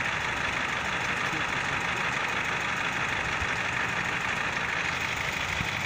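PROMARK 100 infrared road-marking heater running with a steady, even hiss while its heating head sits on a preformed thermoplastic marking to melt it onto the asphalt.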